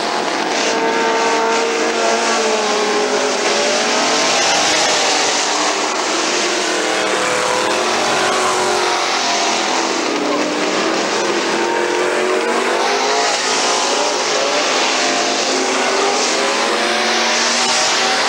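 Street stock race cars running hard around an oval. Several engines sound at once, rising and falling in pitch as the cars speed up and pass.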